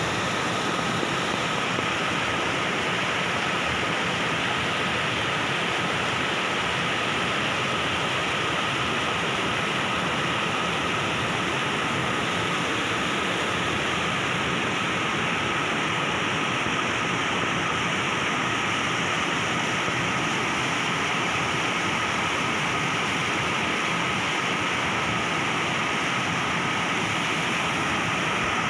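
Small waterfall splashing down a rock face and cascading over boulders into a pool: a steady rush of falling water.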